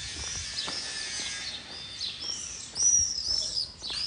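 Birds chirping: a series of short, high-pitched arched calls, repeated several times and loudest about three seconds in, over a steady low background of outdoor noise.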